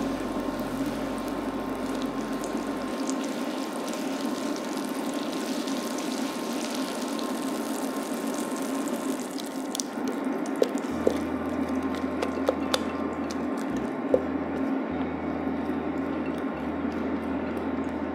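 Melted butter sizzling and frothing in a hot skillet, a steady crackling hiss. About ten seconds in, pancake batter is poured and scraped in from a bowl, with a few sharp clicks.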